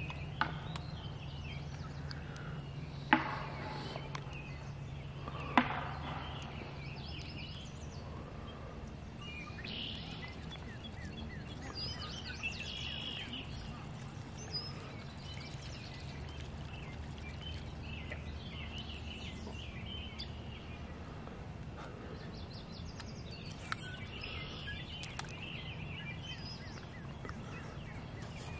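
Birds chirping and singing, over a low steady drone that fades about two-thirds of the way through. Two sharp clicks about three and five and a half seconds in.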